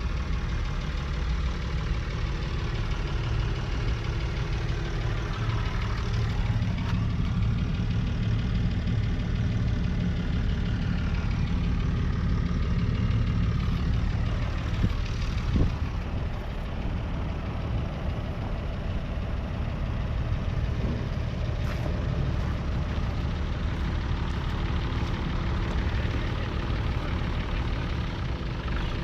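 Deutz-Fahr AgroXtra 6.07's six-cylinder diesel engine running steadily, with two short louder knocks about halfway through.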